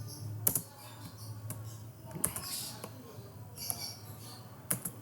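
Computer keyboard being typed on: a few scattered keystrokes over a low steady hum.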